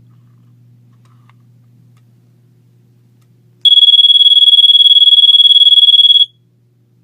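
Vintage 1970s Vulcan Mark 6 photoelectric smoke detector sounding its alarm: one loud, steady, high-pitched tone lasting about two and a half seconds. It starts about halfway in and cuts off suddenly. Before it there is only a faint low hum.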